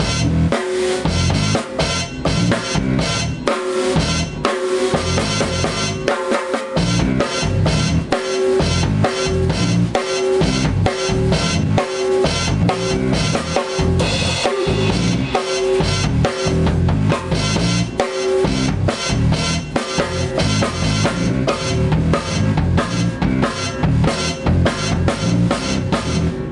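Acoustic drum kit played in a busy, continuous groove: bass drum and snare with rimshots, plus toms and cymbals, struck in quick, steady succession.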